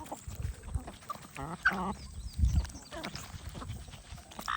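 Duck quacking in a few short calls, strongest in the middle, among scattered clicks and a loud low thump about halfway through.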